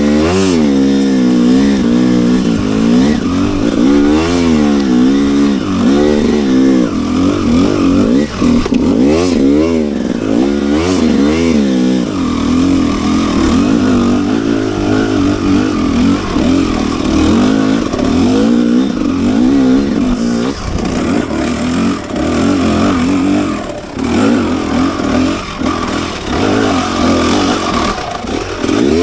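Enduro motorcycle engine revving up and down, its pitch rising and falling several times in the first dozen seconds, then running more steadily under throttle with small changes in pitch.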